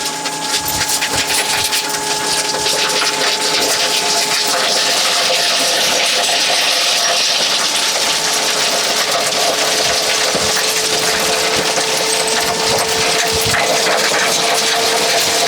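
Crushed stone sliding and rattling out of a tipping dump trailer, over a steady mechanical whine from the trailer's lift.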